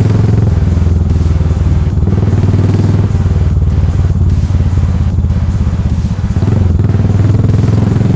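Yamaha SR400's single-cylinder engine running through a full megaphone exhaust, a steady, loud run of thumping firing pulses. The level dips briefly about six seconds in, then picks up again.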